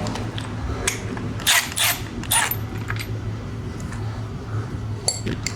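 Metal parts and hand tools clinking while a frame slider and its bolt are handled and fitted. A few scattered sharp clicks come in two groups, about a second and a half in and again near the end, some with a short metallic ring, over a low steady hum.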